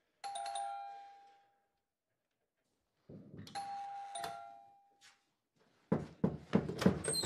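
Electric doorbell chime ringing twice, a two-note ding-dong each time that dies away over about a second. Near the end comes a quick run of sharp knocks.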